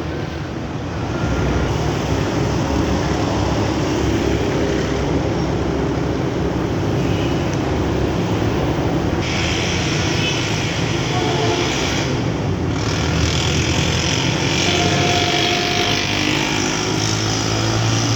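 Bus engine running steadily with road noise, no horn sounding; a stronger hiss comes in about nine seconds in.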